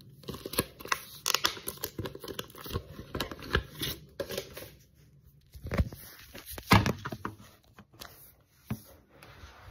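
Thin plastic packaging crinkling and tearing as it is pulled open by hand, with a few heavier thumps and bumps about six to seven seconds in.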